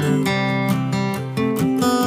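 Background music: strummed acoustic guitar playing changing chords.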